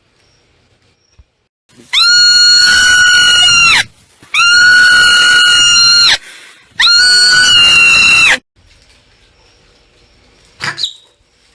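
Marmot giving three long, loud screaming calls, each about two seconds at a steady pitch, with short pauses between them, then a brief short squeak near the end.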